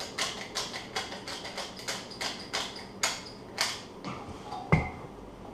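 Pepper shaker shaken hard, about four short rattling shakes a second for the first three and a half seconds, then a single dull thump near the end.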